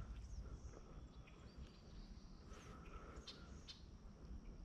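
Faint outdoor ambience: a steady high insect drone with a few short bird chirps, about three seconds in, over a low rumble.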